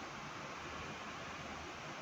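Steady hiss of onion, bitter gourd and green chillies frying in a non-stick pan while a wooden spatula stirs them.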